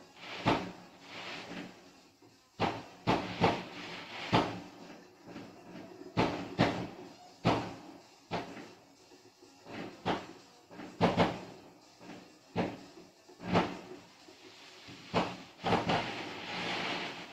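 Fireworks exploding in an irregular string of bangs, about one a second, some coming in close pairs, heard through a television's speaker. Near the end the bangs give way to a steadier hiss for a couple of seconds.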